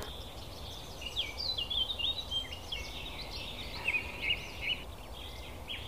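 Small songbird chirping: a busy run of short, high chirps and quick trills over faint background noise.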